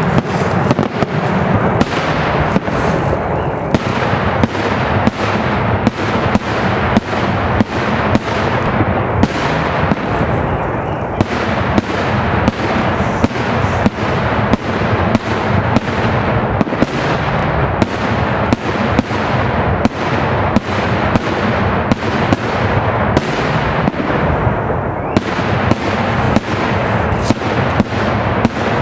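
Daytime fireworks display: a loud, unbroken barrage of aerial shell bursts, sharp bangs coming two or three a second over a continuous rumble and crackle.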